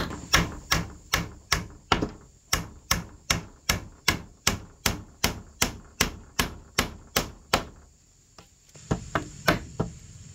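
Hammer blows on wood: an even run of sharp strikes at about two and a half a second, breaking off for about a second near the end before a few lighter strikes.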